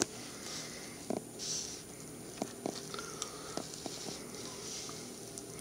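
Plastic scale-model car being pushed and turned by hand on a woven placemat: faint rubbing with a few light clicks.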